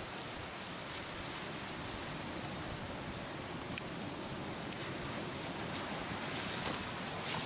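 Night insects trilling: a steady, high-pitched pulsing trill over an even background hiss, with a couple of faint clicks in the middle.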